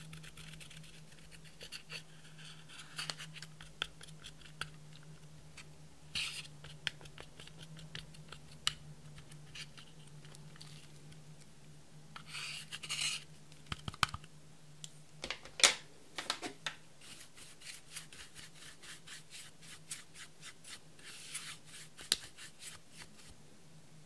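Plastic spatula scraping and breaking up pressed face powder in a metal compact's pan: scratchy strokes and sharp clicks against the pan, with a quick run of clicks in the second half. A low steady hum lies underneath.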